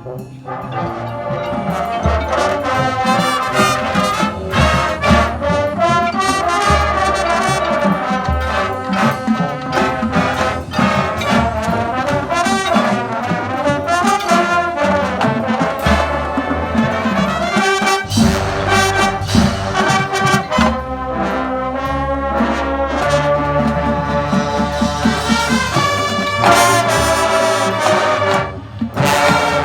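A school marching band playing a brass-heavy piece, trombones and trumpets to the fore over steady drumming. The band breaks off briefly near the end, then comes back in loud.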